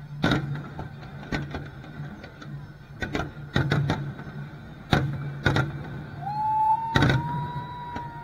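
Aerial firework shells bursting in a rapid, irregular series of sharp booms, with a steady low hum underneath. About six seconds in, a steady whistling tone starts and holds.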